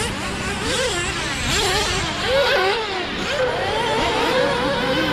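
Several racing engines running at once, their pitches rising and falling as they rev and back off, with one settling into a steadier whine in the last couple of seconds.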